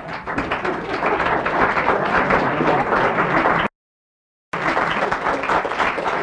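Audience applauding. A little past halfway the sound drops out to total silence for under a second, then the applause resumes.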